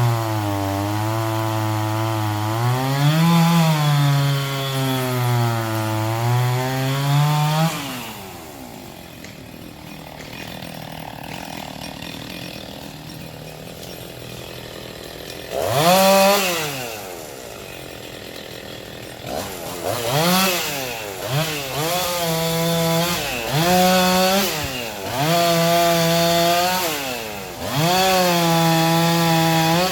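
Chainsaw cutting logs, its pitch sagging and recovering as the chain bites into the wood. About 8 seconds in it drops back to a low idle. It revs sharply around halfway, then runs through several more short cuts, its pitch rising and falling with each.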